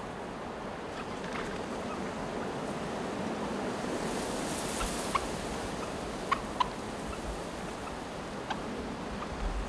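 Wild turkeys clucking: a few short, sharp single notes, the loudest about five seconds in and two close together about a second later, over a steady hiss of wind and open-field air.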